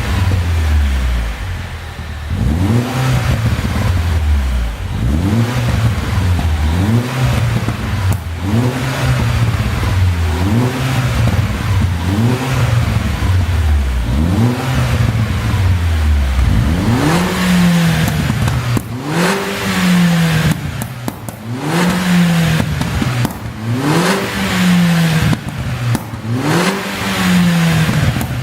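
Tuned Mini Cooper S turbocharged 1.6-litre four-cylinder engine revved up and let fall again and again, about once every two seconds. In the later blips the exhaust pops and crackles on lift-off, the sound of a pop-and-crackle ECU tune.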